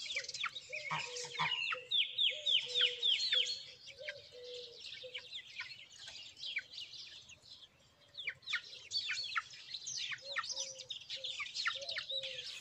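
Young hens peeping: many short, high calls that fall in pitch, some in quick runs of five or six, over softer low clucking notes. The calls pause briefly a little past the middle, then pick up again.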